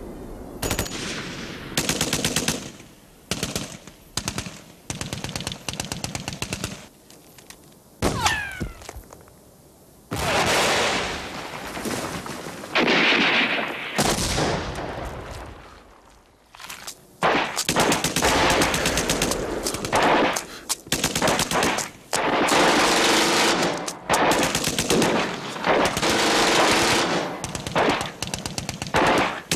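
Bursts of automatic gunfire, some short and some long, coming at irregular intervals with brief lulls between, and a short gliding whine about eight seconds in.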